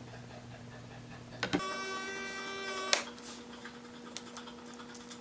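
Small 6-volt geared spur motor turning a corkscrew marble lift, running with a steady low hum. About a second and a half in, a click is followed by a louder, higher whine for about a second and a half, which ends with another click before the low hum resumes.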